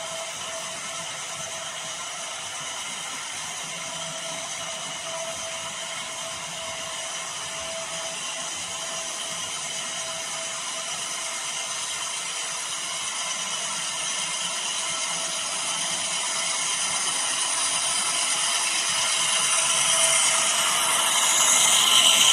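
HO scale model freight train, a Norfolk Southern diesel hauling gondolas, running along the track with a steady mechanical whir and clatter of motor, gears and wheels. It grows steadily louder as the train approaches and is loudest near the end as the locomotive passes close by.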